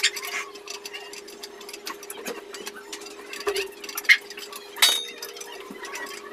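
Irregular metal clicks and clinks from a steel TV wall-mount bracket being fitted and fastened by hand, the loudest a short ringing clink about five seconds in, over a steady low hum.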